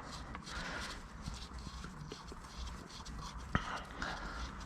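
Light handling noises: scattered small taps and knocks, with one sharp click about three and a half seconds in.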